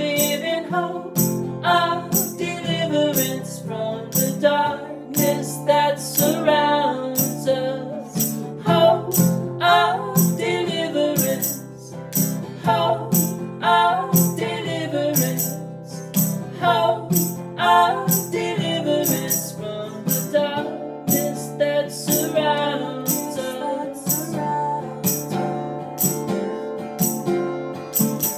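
Acoustic guitar strummed under male and female voices singing together, with hand percussion tapping a steady beat about twice a second. It ends on a final guitar chord left to ring out.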